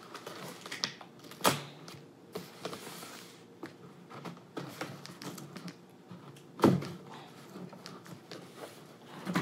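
Scissors cutting packing tape and a cardboard shipping box being pulled open, with scattered clicks, scrapes and rustles of cardboard and a sharp knock about two-thirds of the way through.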